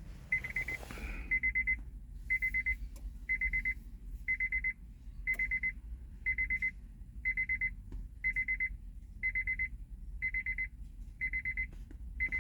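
Electronic beeper sounding a steady series of short, high, identical beeps, about one a second, as the ignition is switched off during immobilizer key programming.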